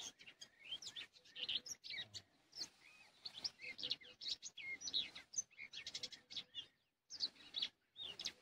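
Small songbirds singing: a steady run of short, high chirps and quick trills.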